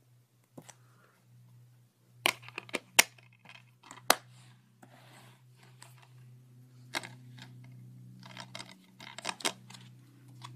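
Plastic DVD case being handled and turned over: a series of sharp clicks and clacks, in clusters about two seconds in, around four seconds, and again near the end, over a faint steady low hum.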